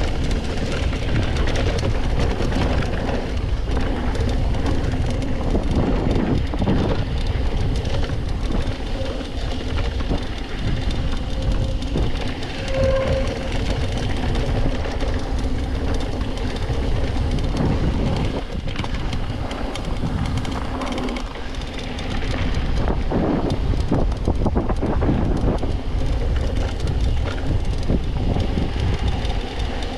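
Mountain bike rolling fast down a dirt trail: a steady rumble of tyres over the ground with constant rattling and knocking of the bike over bumps, heard from a camera mounted on the rider.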